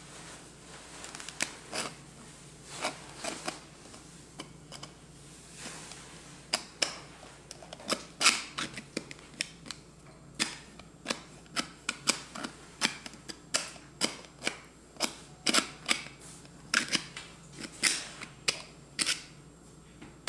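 Hard plastic clicks and knocks from a 3D-printed cylinder maze puzzle as its sleeve is twisted and slid along the raised maze paths of the inner cylinder. They are sparse at first and come about once or twice a second from about six seconds in.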